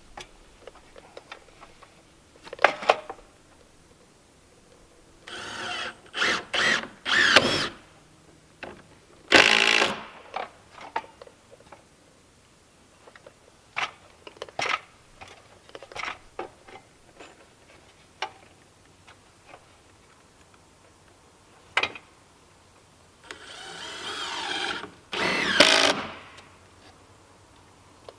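A power drill run in several short bursts, the longest about two seconds near the end, with scattered clicks and knocks of work in between.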